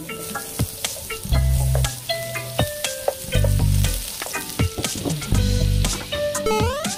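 Butter sizzling and crackling as it melts and foams in a hot nonstick frying pan, pushed around with a plastic spatula, over background music with a recurring bass line.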